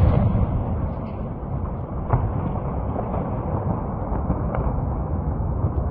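Rumble of a large ammunition depot explosion dying away over the first second, then a steady low rumble from the burning depot with a few faint cracks.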